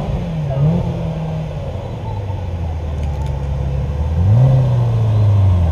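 Car engine revving: two quick throttle blips near the start, then the revs climb about four seconds in and hold higher, growing louder.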